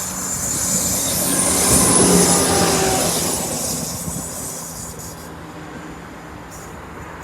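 Diesel passenger train passing through the junction with a steady engine hum and high-pitched wheel squeal. It grows loudest about two seconds in, then fades as it moves away.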